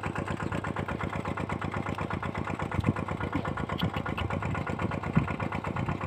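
Small engine-driven water pump running steadily with a fast, even beat, with a couple of brief knocks about three and five seconds in.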